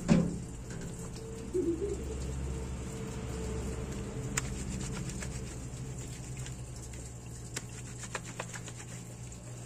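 A wet, soaped cloth diaper being handled and scrubbed by hand at a laundry tank: soft wet patter of fabric with scattered light clicks and drips. There is a thump right at the start, over a low steady hum.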